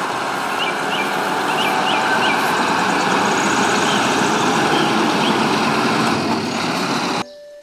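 Diesel road-train tanker truck, a prime mover hauling three tank trailers, driving past with steady engine and tyre noise. A few bird chirps in the first couple of seconds; the sound cuts off abruptly near the end.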